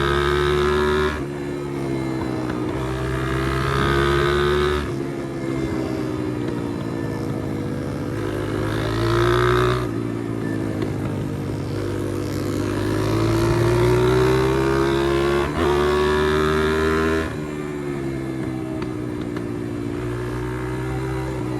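Pit bike's single-cylinder engine running while riding. The engine note climbs and falls as the throttle is opened and closed, dropping back in loudness about four times.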